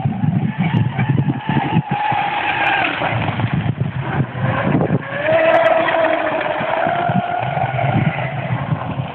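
Brushless electric RC boat (Leopard 3674 2200kv motor, Octura M445 propeller) running at speed, its motor whine rising and falling in pitch with the throttle and strongest about five seconds in. Wind buffets the microphone throughout.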